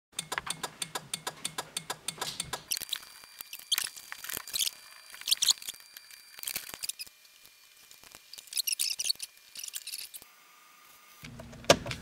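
2001 Toyota Corolla turn-signal flasher clicking rapidly, about seven clicks a second, with no blinker light: the left turn-signal switch's worn terminals make poor contact. After a few seconds it gives way to irregular clicks and rattles as the signal stalk is worked.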